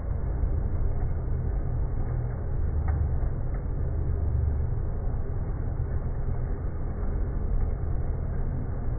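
CNC lathe turning a steel bar with a WIDIA WNMG carbide insert: a steady, dull low rumble of the spindle and cut, with a couple of faint ticks about three seconds in.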